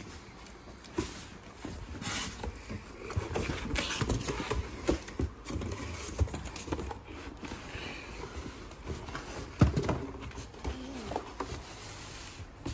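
Cardboard box being opened by hand: flaps pulled apart, with cardboard rustling and scraping. Scattered knocks follow as the boxed RC monster truck and its cardboard insert are lifted out, including one sharp knock near the middle.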